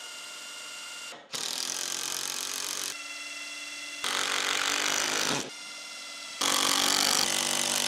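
Cordless drill boring pilot holes into a timber frame, its motor whining in several spells of one to two seconds, alternating quieter and louder.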